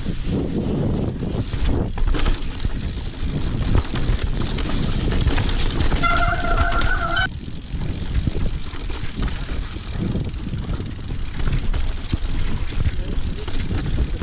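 Mountain bike clattering and rattling over a rocky singletrack: tyres, chain and frame jolting on the stones. About six seconds in, a steady squeal lasts a little over a second.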